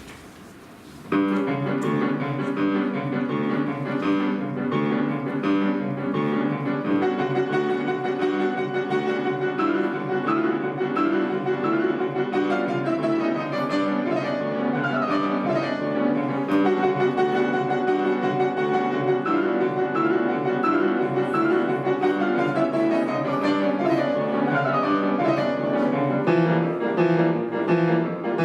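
Piano duo playing a classical piece, starting with a sudden entry about a second in, then steady repeated chords in the low and middle range under a moving melody.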